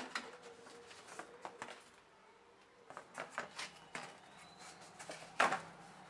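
Handling noise of cardboard packing and a metal wire grill rack being moved and set down: a run of knocks and rustles, with the loudest knock about five and a half seconds in.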